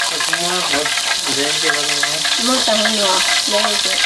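Food frying in a hot pan, a steady sizzle that runs on without a break. Voices talk over it in the background.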